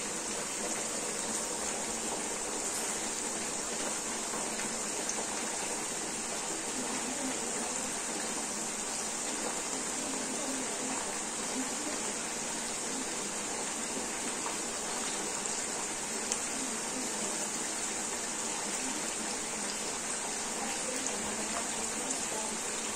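Pan of green beans boiling in water on a gas stove: a steady bubbling hiss with a few faint pops.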